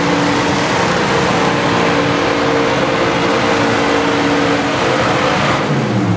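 Dodge Power Wagon pickup's engine running hard under load as it pulls a weight-transfer sled. Its note falls away near the end as the pull ends.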